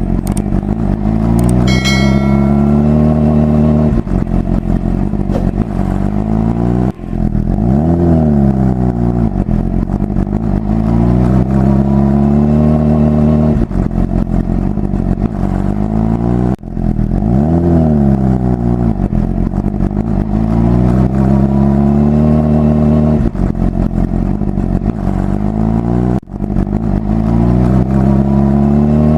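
A toy electric ride-on motorbike's simulated motorcycle engine sound effect, looping. About every ten seconds the sound cuts out briefly, revs up and back down, then holds a steady high rev. A short high-pitched electronic chime sounds about two seconds in.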